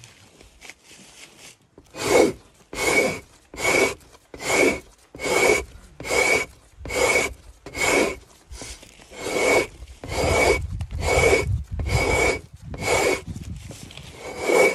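A long-handled hide scraper being pushed down a frozen moose hide stretched on a frame, frost-scraping it thin: a steady run of rasping strokes, about four every three seconds, beginning about two seconds in after a few light scrapes.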